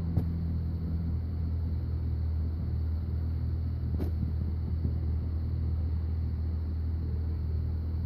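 Chevrolet Corvette C6's V8 engine idling steadily with a low rumble. A short sharp click sounds just after the start, and another about four seconds in.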